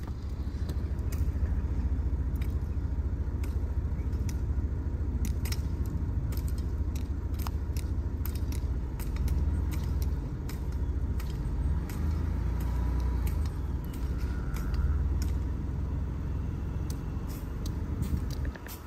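Vehicle engine running with a steady low rumble, heard from inside the cab, with faint scattered clicks over it.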